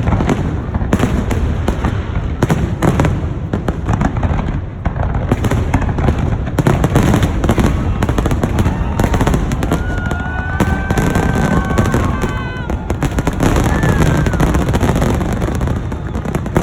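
Large aerial fireworks display: a rapid, continuous barrage of bangs and crackles with no pause. In the second half a few high, drawn-out tones sound over the bangs.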